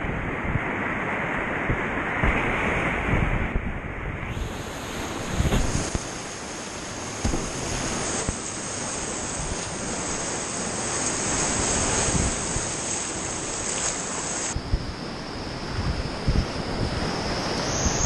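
Whitewater rapids rushing loudly around a kayak, heard through an action camera's microphone, with frequent low buffeting thumps as water and wind hit the mic. The sound changes abruptly a few times.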